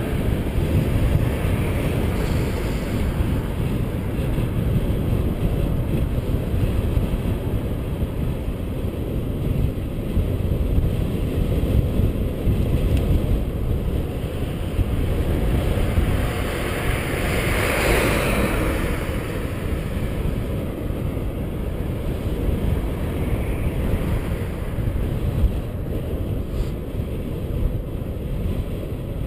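Wind rushing over the microphone of a camera on a moving bicycle, a steady low rumble. About two-thirds of the way through, a passing car's tyre whoosh swells and fades.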